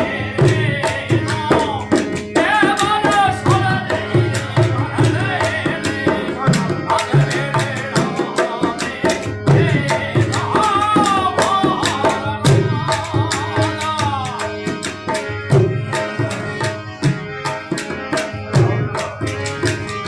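Rajasthani folk music: a dholak struck by hand in a quick, steady rhythm over the sustained reeds of a harmonium.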